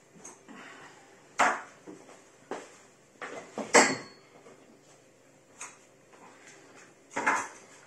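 Metal oven parts and tools being handled: about six separate sharp knocks and clatters, the loudest a bit before halfway with a brief ringing tone.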